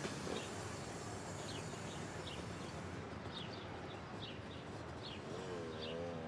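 Street ambience: small birds chirping in short repeated calls over a steady hum of city traffic. Near the end, a wavering musical tone fades in.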